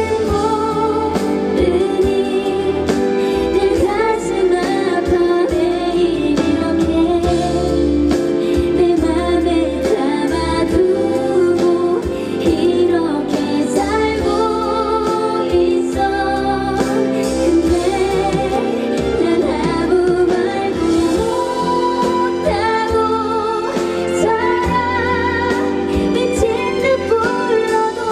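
A woman singing a Korean pop ballad live into a handheld microphone over a full band backing, heard through the concert sound system.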